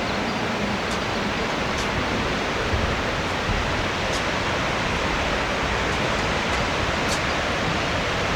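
Waterfall cascading: a steady, full rush of falling water.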